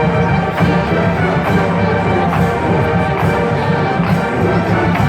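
A marching band plays at full volume, brass carrying sustained chords over a steady low bass line.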